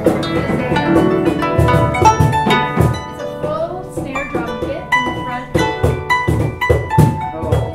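Instrumental background music: quick plucked notes over regular drum hits.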